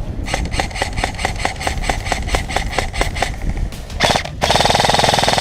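Airsoft electric guns firing: a rapid string of shots about eight a second for about three seconds, then near the end a faster, louder full-auto burst lasting over a second.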